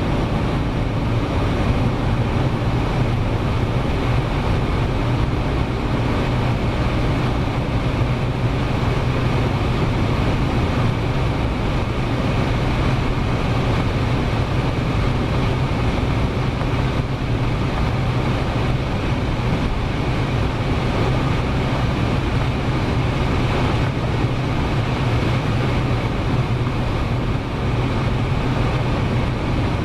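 A car driving at a steady speed: an even engine drone with constant road and wind noise, no revving.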